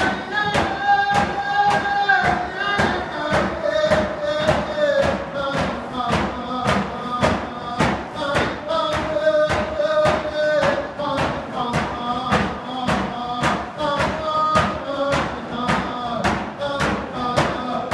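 Round-dance song: hand drums beat a steady, even pulse, about two beats a second, while voices sing the melody over it.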